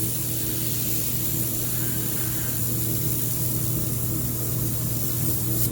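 Air-cooled handheld laser welder running during a wire-fed weld: a steady machine hum with a high hiss.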